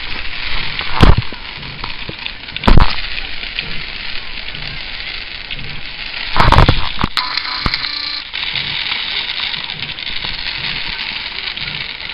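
Firework fountains hiss and crackle steadily as they spray sparks, and three loud bangs stand out: about a second in, near three seconds, and at about six and a half seconds.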